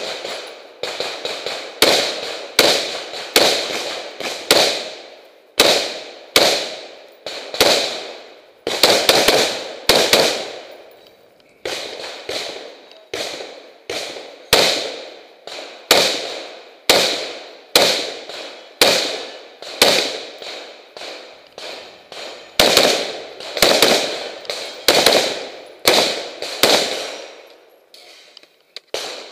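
Rapid rifle fire from a scoped rifle: about three dozen sharp shots, roughly one every half second to a second, each with a short ringing decay. There are brief pauses about halfway through and near the end.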